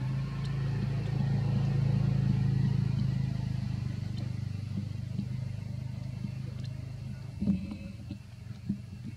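A motor engine droning steadily, loudest about two seconds in, then fading and dropping away about seven and a half seconds in.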